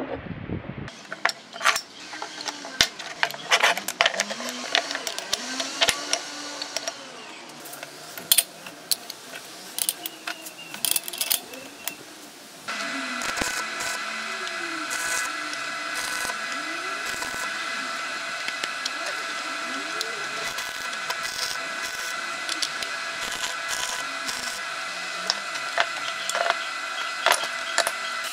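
Metal clinks and knocks as cast iron pieces are handled and set down on a concrete floor. Then, a little under halfway through, a stick welder's arc strikes and runs as a steady hiss with a buzz and scattered crackles.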